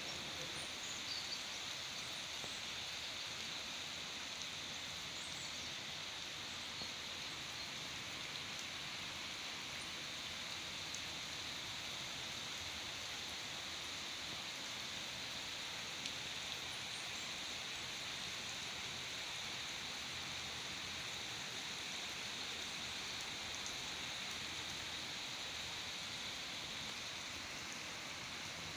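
Heavy rain falling steadily onto flooded, waterlogged ground: an even, unbroken hiss of drops striking standing water.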